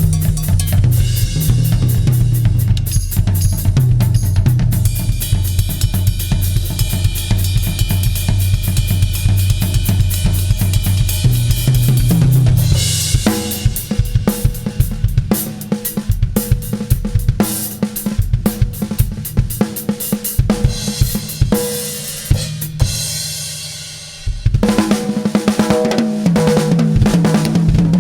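Tama drum kit played as a continuous groove: bass drum, snare, hi-hat and cymbals. The playing thins out and gets quieter a few seconds before the end, then comes back in loud.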